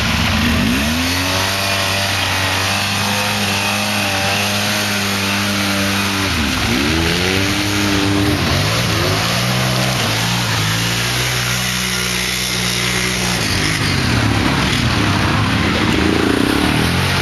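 ATV engine running and revving up and easing off several times, as when a quad is driven hard through deep mud.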